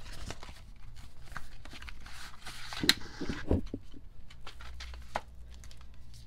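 Album packaging being carefully opened and handled: rustling with scattered clicks and taps, a sharp click about three seconds in, then a few soft thuds.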